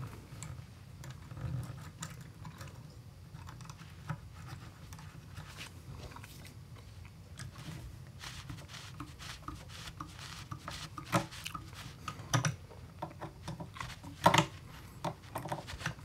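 Small clicks, taps and scratches of hands handling parts and tools at a workbench, over a low steady hum, with a few sharper knocks in the last few seconds.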